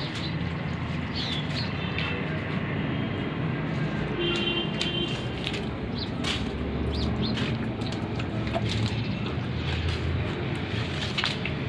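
Street ambience: a steady hum of traffic with scattered clicks and short, high chirps over it.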